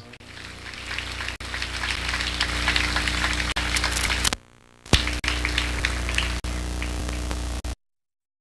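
Crackling static over a steady low electrical hum, with scattered clicks, as on a blank stretch of an old analogue tape transfer. The noise nearly drops out for half a second about four seconds in, returns with a sharp click, then cuts off abruptly near the end.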